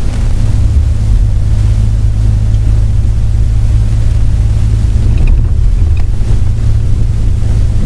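A moving vehicle's engine and road noise: a loud, steady low drone with a few faint small rattles past the middle.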